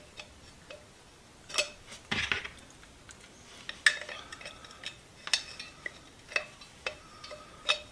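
Small metal parts of a pump oiler clinking and tapping while it is taken apart: a string of sharp clicks, some with a brief metallic ring, and a short scrape about two seconds in.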